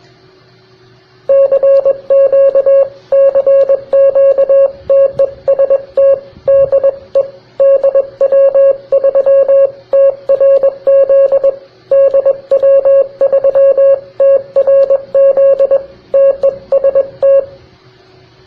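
Morse code (CW) tone keyed on and off in a long run of dits and dahs, starting about a second in and stopping near the end. A faint steady hum lies underneath.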